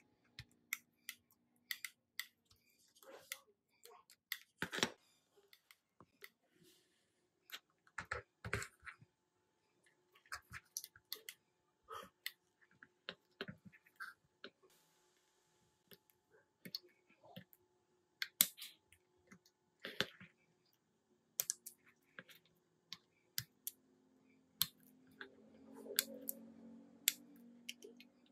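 Scattered sharp clicks and light taps of small hand tools and parts being handled on a circuit board and workbench, with a soft low rumble in the last few seconds.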